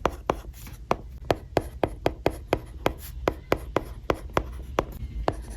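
Capacitive stylus tip writing on an iPad's glass screen: quick strokes and taps, about four sharp clicks a second.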